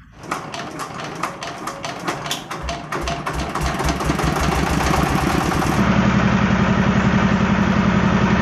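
Engine-driven screw press for cooked gambir leaves running: a fast clatter of knocks at first, then a low, even engine pulse that grows louder and settles into a steady drone about six seconds in.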